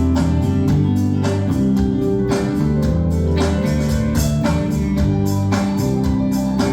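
Live band playing an instrumental passage, with held notes over a steady beat.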